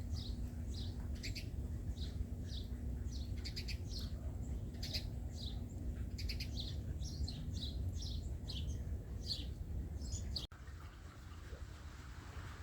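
Birds chirping, a rapid run of short, high, downward-sweeping chirps several times a second over a steady low rumble. The chirping cuts off abruptly about ten and a half seconds in, leaving a quieter, even background hiss.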